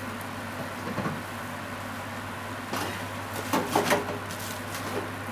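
A spatula scraping and turning fried rice in a non-stick frying pan: a faint stroke about a second in and a cluster of scrapes and knocks about three to four seconds in, over a steady low hum.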